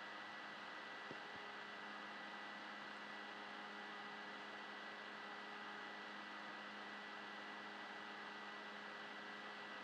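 Faint steady hiss with a low electrical hum: the microphone's background noise between narration. A faint click about a second in.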